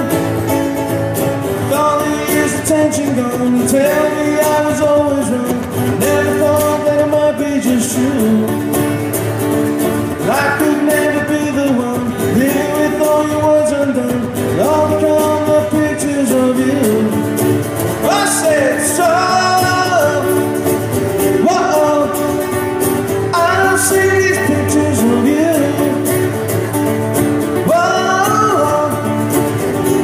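Live acoustic band music: guitar accompaniment under a singing voice holding and sliding between notes.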